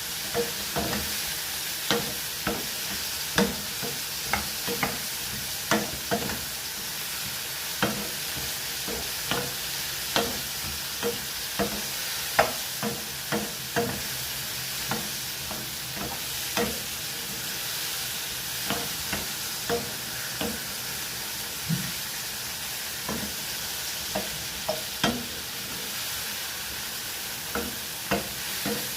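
Mushrooms frying in oil in a pan with a steady sizzle, while a utensil stirs them, clicking and scraping against the pan one or two times a second.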